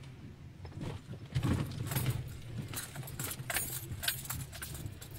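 Irregular jingling rattles and rustles close to the microphone, starting about a second in, over the steady low hum of a car.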